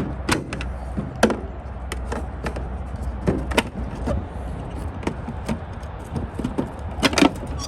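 Scattered plastic clicks and knocks as the bulb sockets are twisted out of a Chevrolet Silverado tail light housing and the light is handled, with a few sharper taps, over a steady low rumble.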